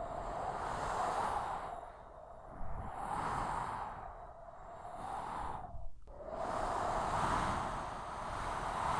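Strong desert sandstorm wind blowing in gusts, a rushing noise that swells and fades about every two seconds and drops away briefly about two-thirds through.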